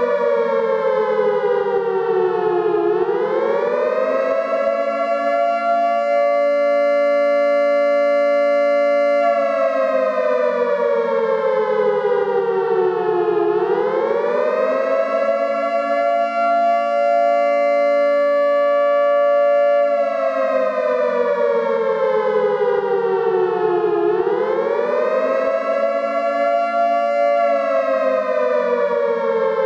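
Air-raid siren sounding the attack warning: a loud wail that rises quickly, holds its pitch for about six seconds, then slides slowly down, repeating roughly three times.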